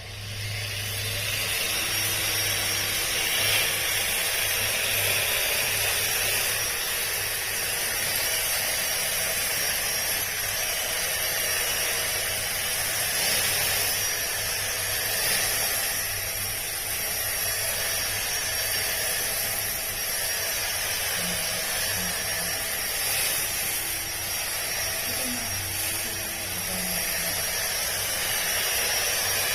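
Makita 18V cordless split ground trimmer running while cutting lawn grass: a steady high hiss over a low hum that comes up at the start and holds.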